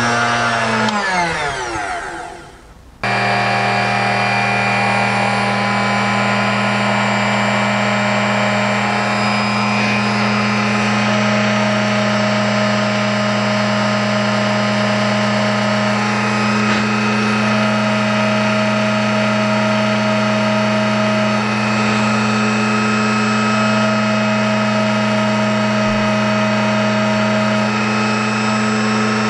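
The motor of a small bench drill press runs steadily while drilling tiny brass parts. About a second in it winds down with a falling whine, then about three seconds in it is abruptly back at full speed and runs steadily to the end.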